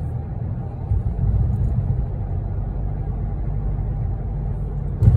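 Steady low road and engine rumble inside a moving car's cabin, with a louder thump near the end.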